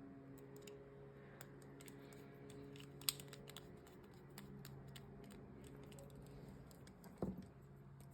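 Faint small clicks and ticks of a screwdriver turning small body screws into a titanium balisong handle, with one sharper click about three seconds in and a low knock near the end. A steady low hum runs underneath.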